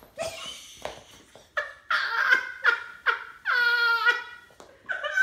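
A woman laughing hard in quick high-pitched bursts, with one longer drawn-out note near the middle.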